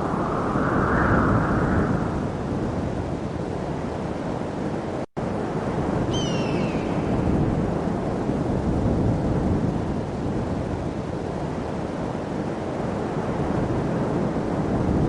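Steady rushing noise, heaviest in the low end. It cuts out for an instant about five seconds in, and a short falling chirp comes about a second later.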